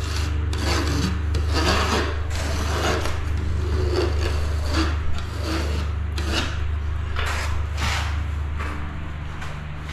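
Hand scraper blade rasping against the shower floor in repeated short strokes, about two a second, wiping built-up residue off the blade. A steady low hum runs underneath.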